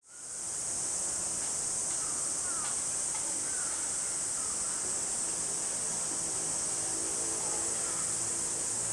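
Cicadas shrilling in a steady, loud summer chorus, with short falling bird chirps every second or so; a low steady hum joins about halfway through.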